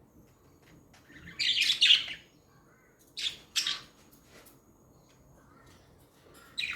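Budgerigars chirping in short, shrill bursts: the loudest about a second and a half in, two shorter ones a little after three seconds, and another near the end.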